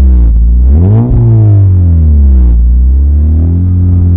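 2011 Honda Civic SE four-cylinder engine through a 2.5-inch Yonaka catback exhaust, revved once: it rises quickly about a second in, falls back, and settles into a steady idle.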